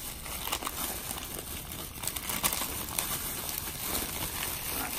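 Thin plastic takeout bag and paper food sleeves crinkling and rustling as a hand rummages through them, in a dense run of quick crackles.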